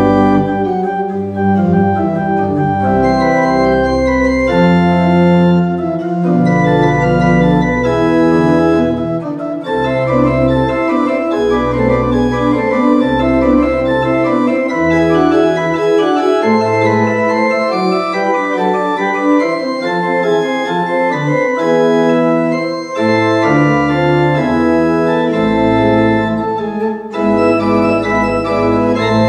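Pipe organ playing a slow prelude: held chords over low bass notes that change every second or two. The bass drops out for several seconds midway, then returns.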